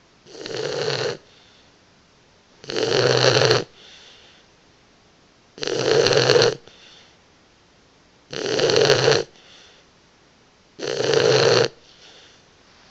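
Boxer puppy snoring in her sleep: five snores, each about a second long, coming regularly about every two and a half seconds.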